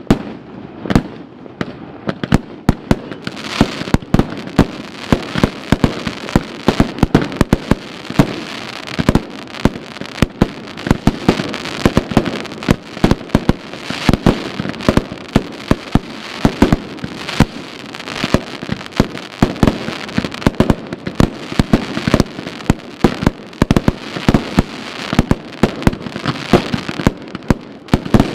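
Aerial fireworks bursting in quick succession: a continuous run of sharp bangs, several a second, with crackling between them that thickens a few seconds in.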